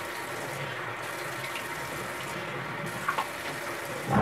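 Bathroom tap running steadily into a sink as cleanser is rinsed off the face with the water.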